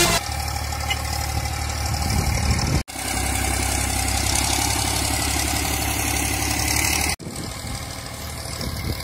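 Ursus C-360 3P tractor's three-cylinder diesel engine running steadily under light load. The sound cuts out abruptly twice, about three and seven seconds in, and is slightly quieter after the second break.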